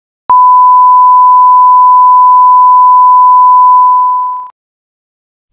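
Reference test tone of a colour-bars video leader: a loud, steady electronic beep at one pitch that starts with a click, holds for about three and a half seconds, then fades and stops.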